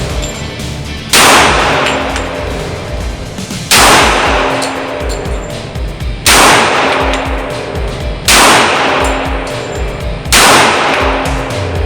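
Five single shots from a Rock Island Armory "Rock" Ultra FS 1911 pistol in .45 ACP, fired slowly about two to two and a half seconds apart. Each is a sharp crack whose echo dies away over about a second.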